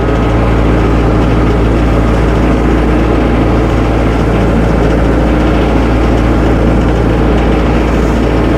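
Tractor engine running steadily at an even speed while the tractor is driven back and forth.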